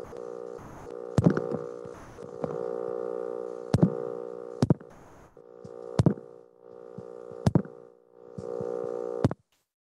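A steady electrical buzz with many overtones, dropping out briefly a few times and stopping near the end. It is cut by about six sharp, loud clicks roughly a second or more apart.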